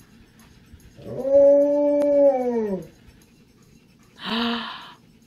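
Alaskan Malamute "talking": one long howling woo, about two seconds, that rises at the start, holds and slides down at the end. About a second later comes a shorter, breathier one.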